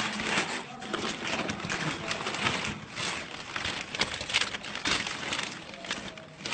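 White wrapping being handled and pulled open by hand, rustling unevenly throughout.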